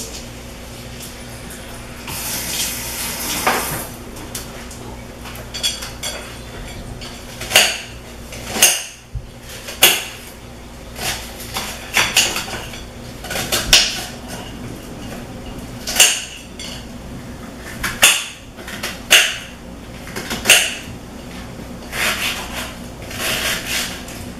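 A kitchen knife clinking against a plate as an onion is cut on it: sharp, irregular clinks every second or two. A brief hiss comes about two seconds in.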